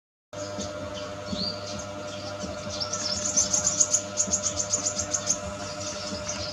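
A small bird chirping: one short rising chirp, then a quick run of high chirps, about seven a second, lasting a couple of seconds. A steady hum runs underneath.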